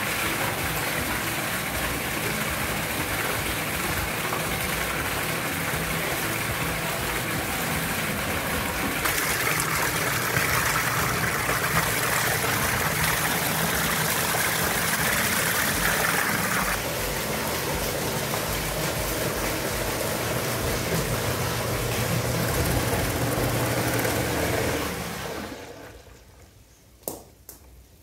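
Homemade centrifugal pump driven by a 400 W washing machine motor, running steadily with a low hum while water gushes from its outlet pipe and splashes into a bucket. The sound dies away near the end, followed by a couple of sharp clicks.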